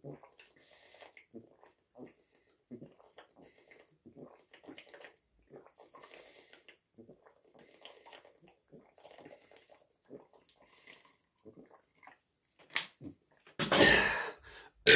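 A person gulping flavoured water down fast from a plastic bottle, with repeated swallows at about two a second. Near the end the gulping stops, and a sharp click is followed by a loud burst of breath.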